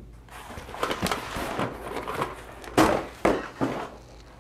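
Long cardboard shipping box being slid and lifted off a wooden tabletop: rustling cardboard scraping on the wood, with a few dull knocks, the loudest almost three seconds in.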